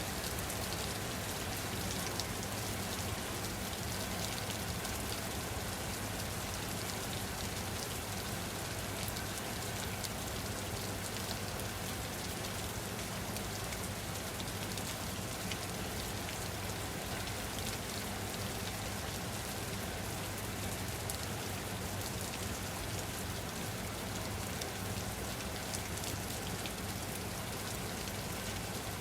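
Steady, even rain falling on a surface, a dense patter of drops with no change in intensity.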